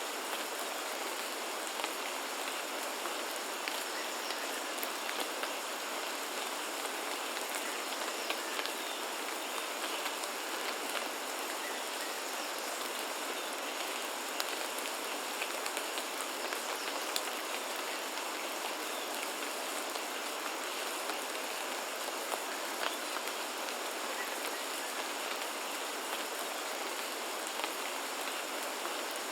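Steady rain falling, with many separate drop impacts ticking through an even hiss.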